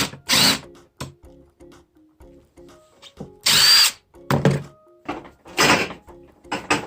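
Electric drill backing screws out of the ATV's plastic fender, run in a series of short bursts, the motor whining up in pitch as it spins.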